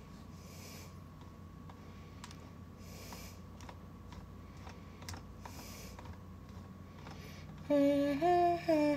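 Scattered keystrokes and clicks on a computer keyboard. A woman's voice comes in briefly near the end, louder than the typing.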